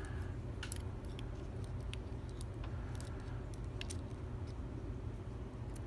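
Scattered light clicks and ticks of small lock pins and tools being handled during disassembly of a pin-tumbler lock, over a steady low hum.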